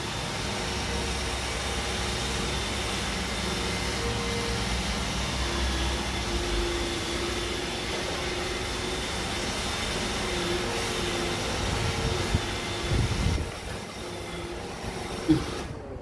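iRobot Roomba i7 robot vacuum running in spot-clean mode: a steady whir of its suction motor and brushes, with a faint whine over it. About three seconds before the end it gets quieter, and a few sharp knocks of handling follow.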